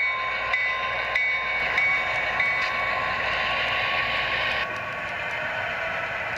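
Sound decoder of an HO-scale Southern Pacific diesel switcher model: the locomotive bell rings about every 0.6 s for the first few seconds. Then a steady hiss takes over and cuts off suddenly a little past the middle.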